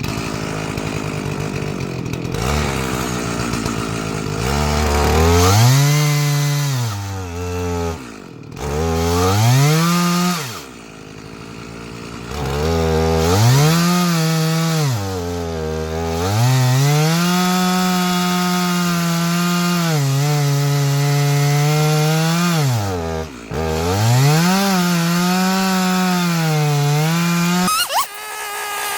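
Two-stroke gas chainsaw on a chainsaw mill, running at high revs as it cuts through a log. The revs drop away and climb back several times, and the saw cuts off near the end.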